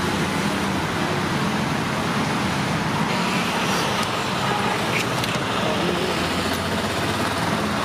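Steady road traffic noise with a low hum underneath, and a few sharp clicks about four to five seconds in.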